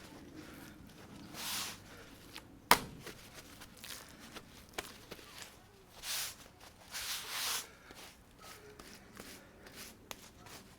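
Paper towels rustling in short bursts as a raw eye of round roast is patted dry by hand, with one sharp knock about two and a half seconds in.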